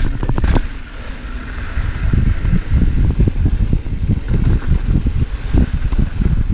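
Mountain bike descending a dirt and rock singletrack: a low rumble of wind buffeting the camera microphone and tyres over the ground, with the bike rattling and knocking on bumps, and a cluster of sharp clicks about half a second in.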